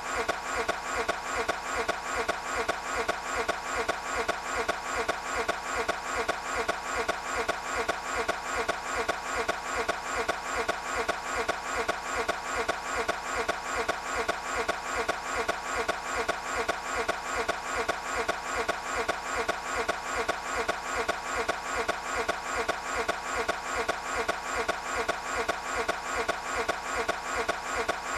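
Toyota 86 engine cranking over on its starter and failing to catch, an even pulsing about three times a second that never changes.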